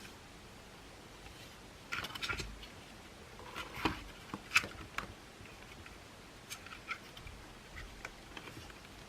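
Small clicks, taps and scrapes of parts being handled during disassembly of a cordless stick vacuum. A burst of sharp clicks and scrapes comes about two seconds in, then a few lighter ticks later.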